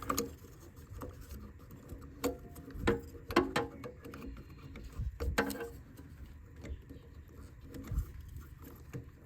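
Hands handling the new crankshaft position sensor's wire and plastic plug-in in the engine bay: irregular clicks, taps and knocks, a few with a short ring, as the wiring is worked into place.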